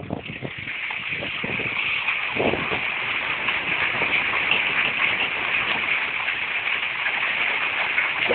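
Mechanical grape harvester working a vine row: a steady rattling hiss that swells in over the first two seconds, with scattered knocks early on that thin out.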